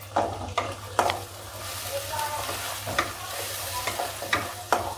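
Wooden spatula stirring onion, tomato and spices frying in oil in a kadhai: a steady sizzle, with the spatula knocking and scraping against the pan about six times.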